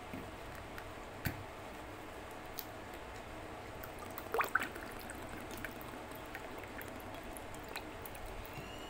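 Quiet eating sounds from a meal eaten by hand: a few soft, wet clicks and squishes over a steady background hiss, with a short louder cluster about four and a half seconds in.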